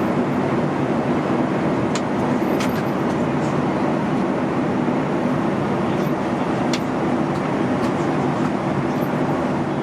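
Steady running noise of a moving vehicle heard from inside, with a few light clicks about two seconds in and again near seven seconds.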